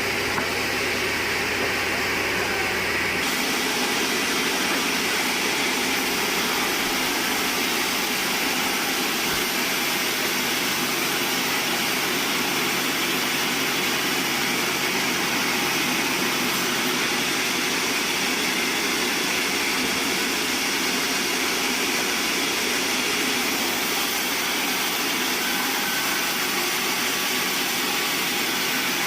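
Sawmill band saw running steadily, a dense, even mechanical noise; a low hum underneath drops out about three seconds in.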